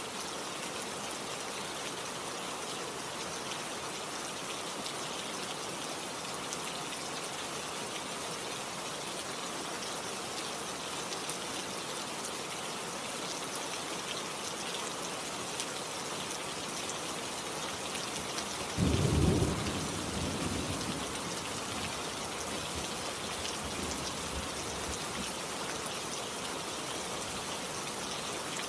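Steady rain falling, with a single loud, low rumble of thunder about two-thirds of the way through that fades out over a few seconds.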